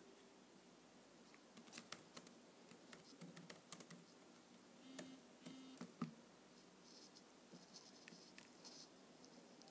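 Faint, irregular taps and clicks of fingers on a device, as in typing, starting about a second and a half in, with two brief low hums near the middle.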